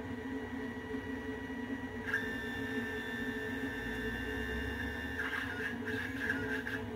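CNC 3040 T-D router's stepper motors driving the axes through an air cut: steady whining tones over a lower steady hum, the pitch changing to a new higher note about two seconds in and breaking up into short, shifting moves after about five seconds.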